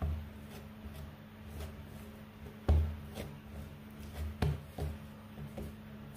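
Oat bread dough being kneaded and pressed by hand on a countertop: soft low thuds, the strongest a little under three seconds in and again around four and a half seconds, over a steady low hum.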